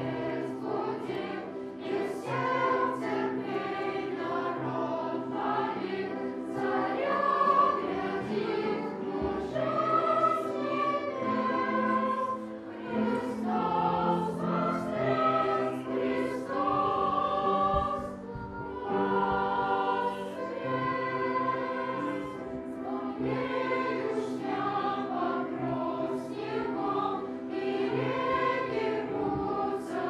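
Children's choir singing a Russian Easter song in phrases, with short breaks between lines.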